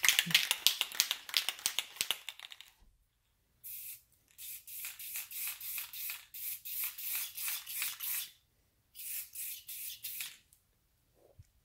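Aerosol can of Rust-Oleum gloss clear coat: a fast rattle for the first couple of seconds, the can being shaken, then spraying in two hissing passes, a long one from about four seconds to eight and a shorter one near the end, each hiss pulsing rapidly.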